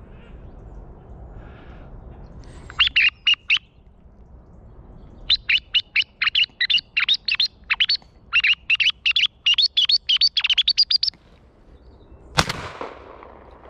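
High, quick chirping calls: a short run about three seconds in, then a long rapid run from about five to eleven seconds. A single shotgun shot follows about twelve seconds in.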